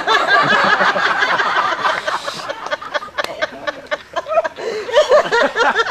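Audience laughing and calling out, many voices at once. A dense crowd outburst in the first couple of seconds thins into scattered laughter.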